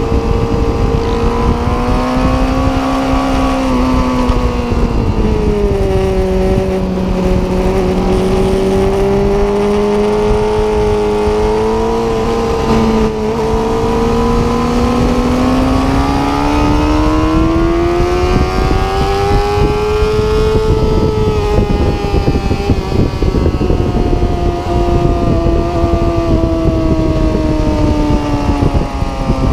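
Sportbike engine heard from the rider's seat while lapping a racetrack, its note dropping about five seconds in, climbing steadily from about 14 s to a peak around 20 s, then falling slowly as the throttle eases.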